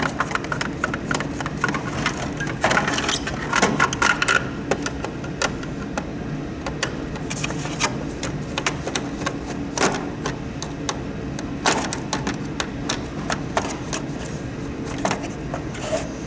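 Irregular clicks, taps and short scrapes of small tools and plastic parts being handled while a humidifier is taken apart, over a steady low background hum.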